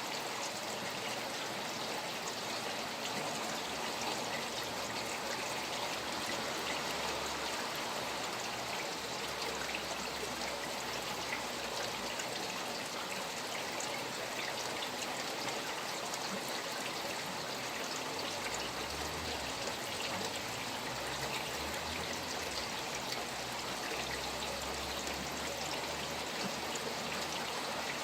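Steady rain falling beside a flowing stream: a continuous, even rush of running water dotted with countless small drop impacts.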